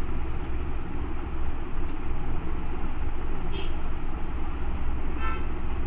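Steady background hum and hiss, strongest low down, with a few faint clicks.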